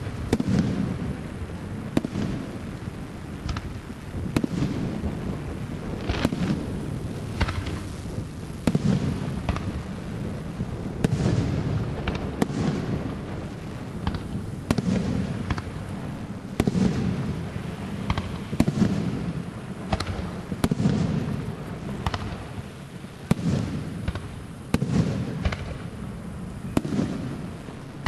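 Aerial firework shells bursting one after another, a sharp bang every second or two, each followed by a low rolling rumble.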